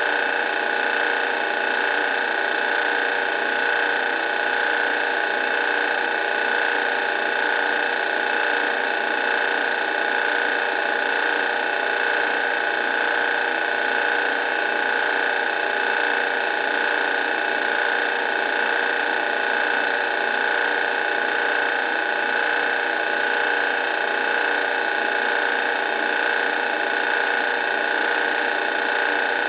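Drill press running steadily with a strong high-pitched whine, cutting into a pistol's steel slide.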